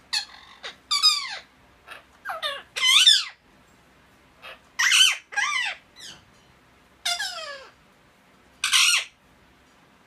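Indian ringneck parakeets squawking: a run of loud, harsh calls, many falling in pitch, coming in clusters with short pauses between them.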